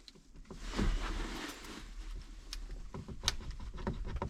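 Plastic creaking, scraping and clicking as the 4x4 selector switch is pried by hand out of a Ford F150 dash trim panel, with several sharp clicks and one louder snap a little after three seconds in. The switch's retaining clips are giving way, and one side is already broken.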